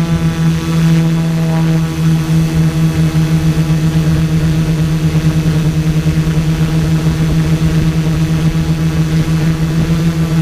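Multirotor drone's electric motors and propellers humming steadily at one pitch as the craft hovers in loiter mode, heard close up from its onboard camera, the loudness wavering rapidly.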